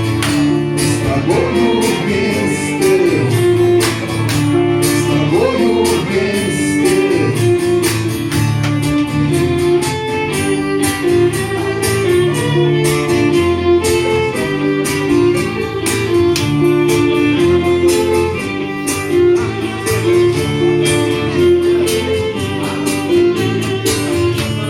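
Instrumental intro of a band's rock ballad: guitar and a held melody line over bass, with steady percussion strokes.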